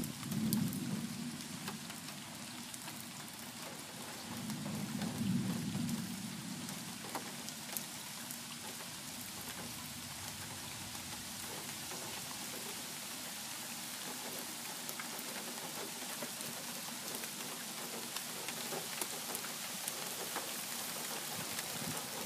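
Steady rain falling, with two low rumbles of thunder, one right at the start and another about five seconds in.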